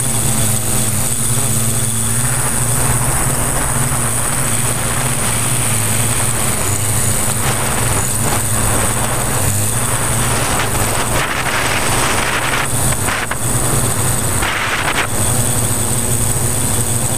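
Multirotor drone's electric motors and 15x5.5 propellers humming steadily in flight, heard up close from a camera on the frame, with surges of wind noise in the second half.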